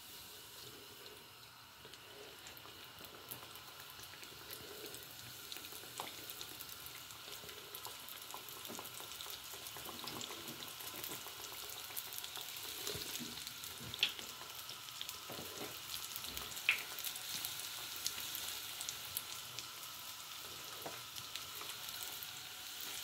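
Pişi dough rings frying in hot oil in a wide pan: a crackling sizzle that grows louder as more rings go in. Two sharp clicks stand out a little past the middle.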